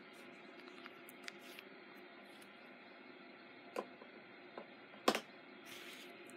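Quiet room with a few small clicks and taps from handling on the tabletop, the loudest about five seconds in, and a brief soft rustle near the end.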